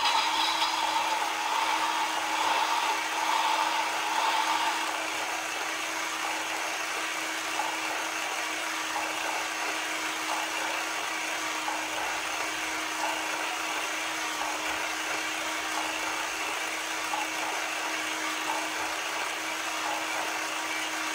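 Haynes build-your-own clear-plastic four-cylinder model engine running on its small battery-powered electric motor: a steady mechanical whir of motor, gears and moving parts with a constant low hum. It starts suddenly at switch-on and runs evenly on fresh batteries.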